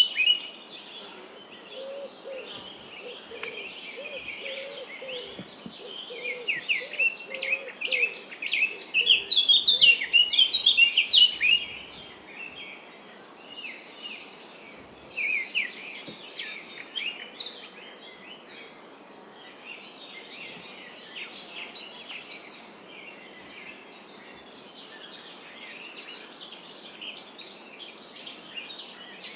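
Several birds chirping and singing over a steady background hiss, busiest and loudest in the first half. A lower call repeats for several seconds near the start, then the chirping thins out.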